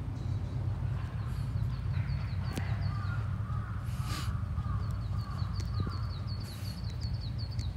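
Crows cawing, with a small bird's rapid high chirping trill coming and going, over a steady low rumble like wind on the microphone.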